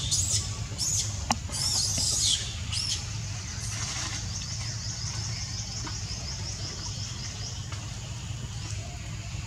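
Young long-tailed macaques squealing in high-pitched bursts through the first two and a half seconds. After that, a high pulsing chirp repeats about four or five times a second, over a steady low rumble.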